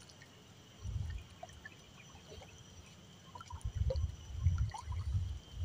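Water lapping and trickling, with dull low bumps about a second in and several more in the second half.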